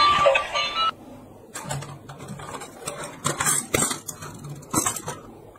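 A light-up gear toy train's electronic tune plays and cuts off suddenly about a second in. Then come a handful of sharp plastic clicks and knocks as a transforming toy-train robot is handled on the table.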